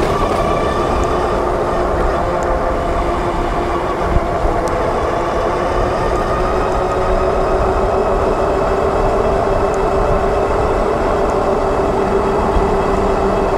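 Super73 RX electric bike riding at cruising speed: a steady whine of several even tones that climbs a little in pitch over the first few seconds and then holds, over a heavy low rumble of wind and road.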